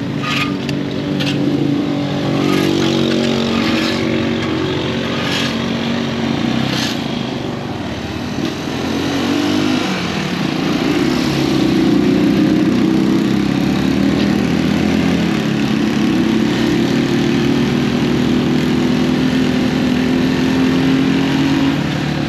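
Rusi Macho 175 motorcycle's single-cylinder engine running under way, with wind and road noise over it. The engine note sinks about eight seconds in, then picks up again and holds higher.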